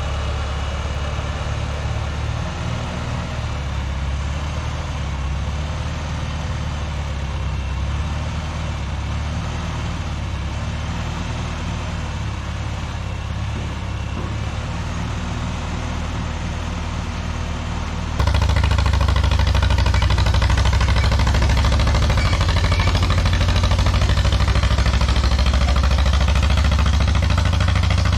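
Old farm tractor engine running steadily with an even low chug as the tractors are moved onto the pad. About two thirds of the way through, it switches abruptly to a louder, closer engine.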